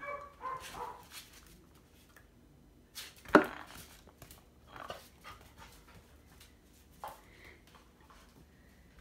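Young puppy barking: one sharp bark about three seconds in, with a short yip near the start and a few softer short sounds after.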